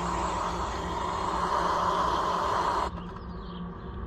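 Steady whirring of a power tool cleaning bolts, which cuts off abruptly about three seconds in, leaving a quieter low hum.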